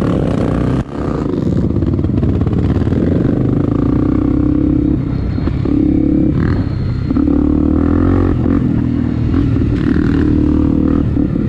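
Trail motorcycle's single-cylinder four-stroke engine running steadily while being ridden, with a brief drop in sound about a second in. The bike rattles as it goes.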